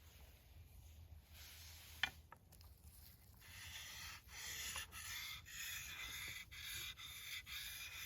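A nata (Japanese hatchet) blade being sharpened: rhythmic rubbing strokes of steel on a sharpening surface begin about three and a half seconds in, each lasting about half a second. A sharp click comes about two seconds in.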